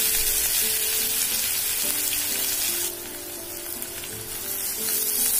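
Chopped onion sizzling as it fries in hot oil with a mustard-seed and cumin tempering, the onion just added to the phodni. The sizzle drops away briefly past the middle and picks up again near the end.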